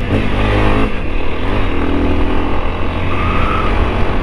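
Honda XRE 300's single-cylinder engine running steadily under way through a Moto'Car 2-in-1 aftermarket exhaust, with its exhaust valve closed to quiet it.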